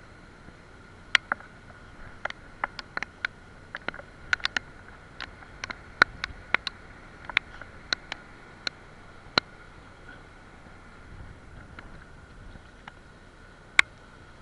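A run of sharp, irregular clicks and knocks, about twenty in eight seconds, then one more near the end, with a faint steady high tone underneath.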